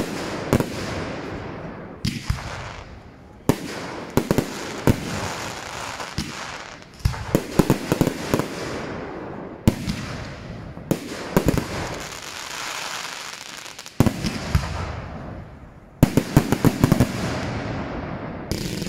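Fireworks going off: sharp bangs every one to three seconds, each followed by rapid crackling and a fading hiss.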